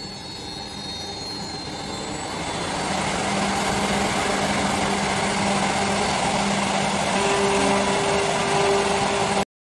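Woodmaster 8-spindle, 32-cutter CNC wood milling machine running, its spindles working wooden stock. The steady whine grows louder over the first few seconds, holds, and cuts off abruptly near the end.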